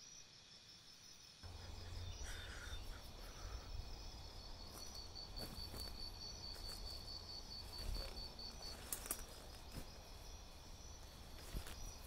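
Insects chirping outdoors in a fast, even, pulsing trill that drops out about three quarters of the way through. A low rumble comes in about a second and a half in, with a few light clicks.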